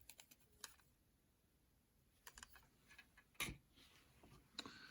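A few light plastic clicks and taps from LEGO pieces being handled, scattered and irregular, the sharpest about three and a half seconds in; otherwise near silence.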